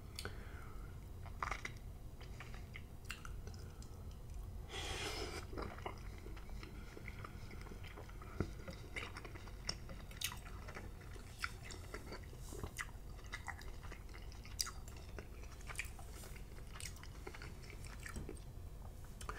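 Close-up chewing of slimy cooked spinach: irregular wet mouth smacks and clicks, with one longer noisy sound about five seconds in, over a low steady hum.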